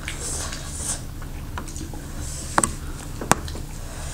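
Close-up eating sounds of a meal of barbecued ribs, wings and momo: soft wet chewing and smacking, with two sharp clicks a little under a second apart past the middle, over a steady low hum.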